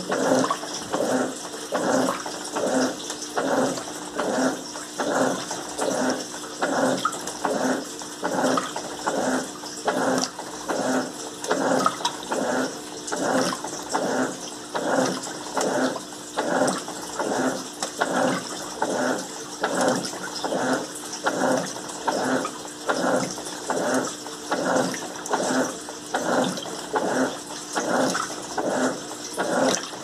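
Electrolux Turbo Limpeza 8 kg top-loading washing machine agitating a full tub of water and rugs on its normal, non-turbo setting. The agitator swishes back and forth with an even, rhythmic churning and sloshing of water, about three strokes every two seconds.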